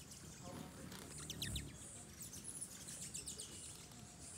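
Hummingbirds chirping: quick runs of high, thin chips, the busiest from about a second in to past halfway, with a soft low thump about a second and a half in.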